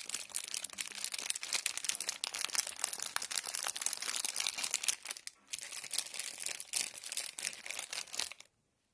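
Plastic spaghetti bag crinkling and crackling in a dense, rapid run, with a short pause a little past the middle, then stopping suddenly near the end.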